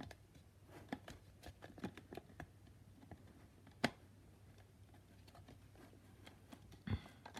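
Faint, scattered clicks and taps of plastic KerPlunk game parts being handled as the tube is fitted and turned on its base, with one sharper click about four seconds in and a duller knock near the end.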